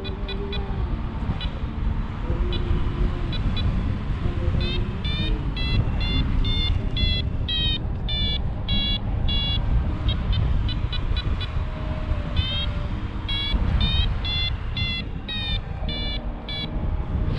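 Paraglider's variometer beeping: short rising beeps, sparse at first, then two spells of rapid beeping, the climb tone that signals the glider is going up in lift. Steady wind noise buffets the microphone underneath.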